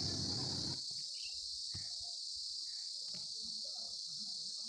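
A steady high-pitched hiss or drone. Low rustling noise runs underneath it and stops abruptly about a second in, followed by a few faint ticks.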